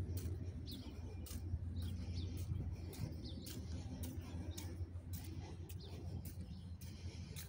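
Small birds chirping now and then over a steady low rumble, with light ticks of footsteps about twice a second.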